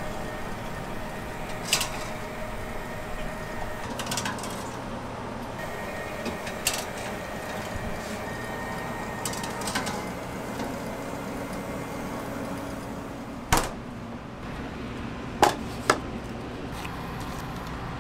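Metal baking trays knocking and clinking against the wire racks of a proofing cabinet as trays of raw donut dough are slid in, a few sharp knocks spread out with a loud double knock near the end, over a steady hum of kitchen machinery.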